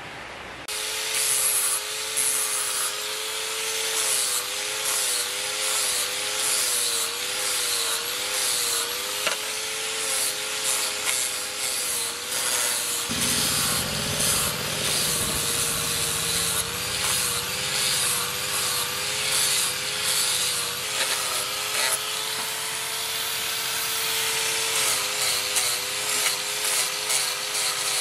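Angle grinder with an abrasive disc grinding and polishing a steel machete blade. It starts about a second in, and its motor whine dips and recovers again and again under a harsh grinding hiss.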